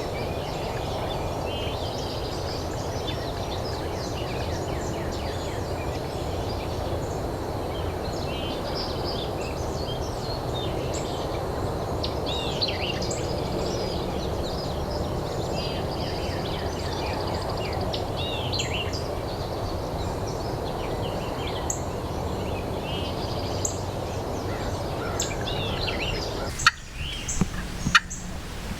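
Wild turkeys gobbling, with small birds chirping over a steady background rush. A run of sharp, loud clicks comes near the end.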